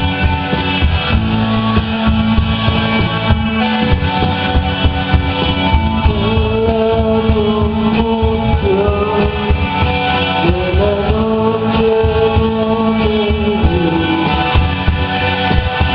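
A rock band playing live with electric guitar. A held, slightly wavering melody line comes in about six seconds in and drops out near the end.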